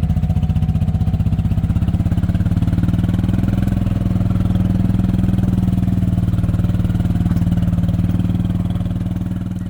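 Small vehicle engine running steadily under way, with an even pulsing beat. It fades away near the end.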